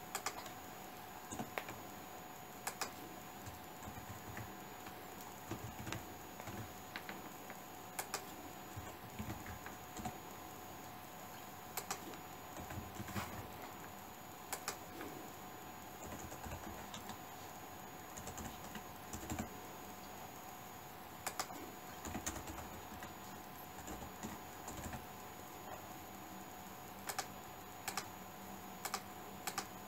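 Typing on a computer keyboard: irregular runs of keystrokes with short pauses between them. A faint steady hum lies underneath.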